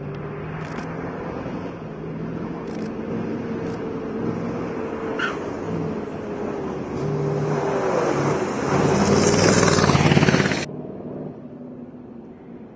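Rally-raid truck's diesel engine running under load as the truck drives toward the camera on a wet dirt track, growing louder and loudest about eight to ten seconds in. The sound cuts off suddenly near the end, leaving a quieter, more distant truck engine.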